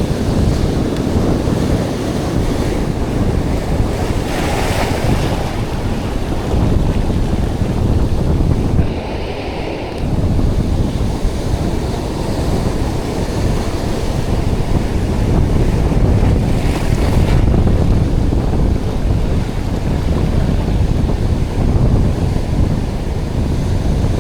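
Strong wind buffeting the microphone over the steady wash of surf breaking on the beach, easing briefly about nine seconds in.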